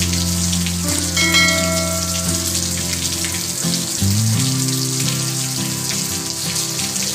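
Heavy tropical rain falling steadily on leaves and a wet road, with background music of held low chords that shift about four seconds in and a few brief higher notes near the start.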